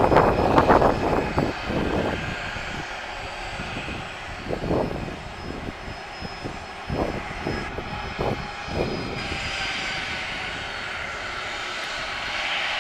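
Boeing 737-800's twin CFM56 jet engines running as the airliner rolls on the runway for takeoff: an uneven low rumble that surges in the first couple of seconds, then a hiss that rises from about nine seconds in as the engines spool up.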